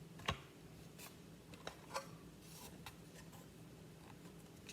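Faint handling noise from construction-kit parts being fitted by hand: light rubbing and a few small clicks, the clearest just after the start and about two seconds in.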